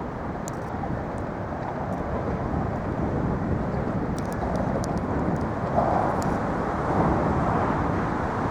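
Steady rumble of traffic crossing the Manhattan Bridge.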